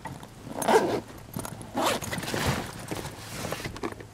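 Zipper on a backpack being pulled open, a few rasping pulls, the longest about two seconds in.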